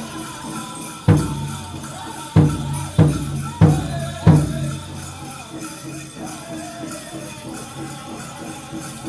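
Powwow drum group singing a chicken dance song over a big drum, with five loud accented drum strikes between about one and four and a half seconds in. Dancers' bells jingle throughout.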